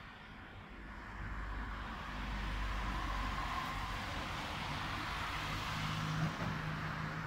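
City street traffic: cars driving past through an intersection, their engine and tyre noise growing louder about two seconds in, with a low engine hum near the end.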